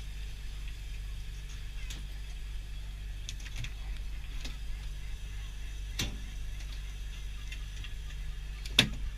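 A boat engine running steadily under a longline haul, with scattered clicks and knocks of gear at the rail, and a sharp knock near the end as a gaffed fish is swung aboard.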